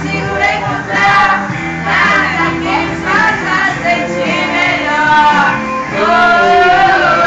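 Several women singing together along with a karaoke backing track, their voices loud and holding long notes near the end.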